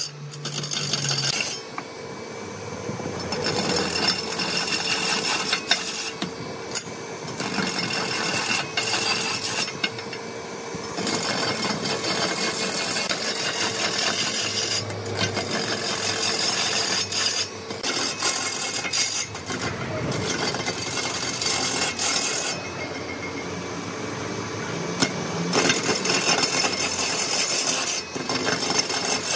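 Hand turning tool cutting into a large log spinning on a wood lathe: a continuous rasping scrape as shavings are peeled off, over a steady hum. A few times the scraping drops away for a second or two before resuming.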